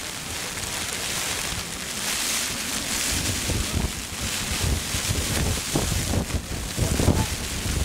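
Wind buffeting the microphone: a steady rushing hiss with low rumbling gusts that grow stronger about three seconds in.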